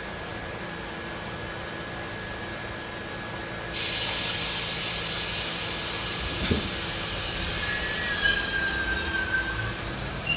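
R68A subway train standing at a platform with a steady hum, then a sudden hiss about four seconds in. About six seconds in there is a knock, and the train pulls out with high wheel squeal as it moves off.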